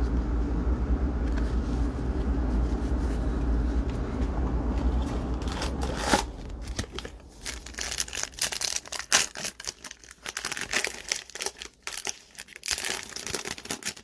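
A steady low rumble that cuts off about six seconds in, followed by the crinkling, tearing and rustling of a foil trading-card pack wrapper being torn open and handled.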